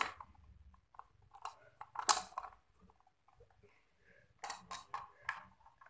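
Hard plastic clicks and taps from a toy's plastic cube box being handled and its lid pressed, with one sharp snap about two seconds in and a quick run of about four clicks near the end.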